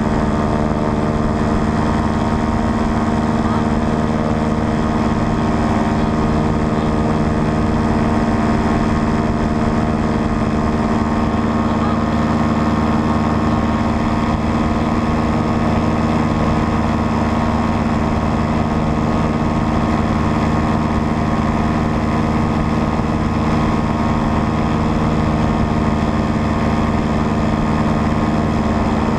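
Paramotor engine and propeller running at a constant cruise throttle in flight, a loud, unbroken drone with a steady pitch.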